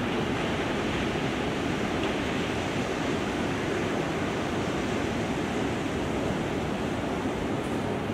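Large ocean swell breaking, heard as a continuous, even wash of surf noise with no separate crashes standing out.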